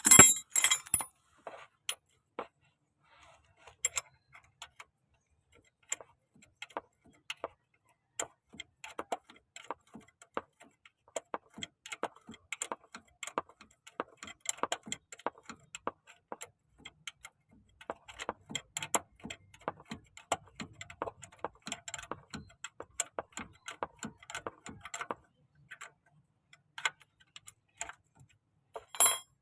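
Hand tools clicking and clinking against metal parts: many short metallic ticks in irregular runs, with louder clanks at the start and again near the end.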